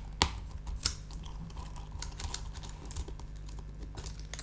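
Light clicks and ticks of metal tweezers picking at a small screw hidden under a label inside a MacBook Pro, with two sharper clicks in the first second.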